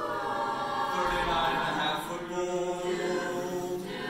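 Mixed-voice school choir singing held chords in harmony.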